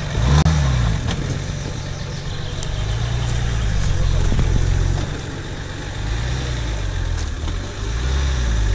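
Off-road four-by-four's engine running at low revs under load, its pitch rising and easing back several times as the vehicle crawls over a mound.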